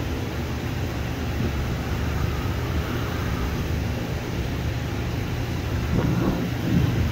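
Steady low rumble of jet airliner engines at an airport, a little louder near the end.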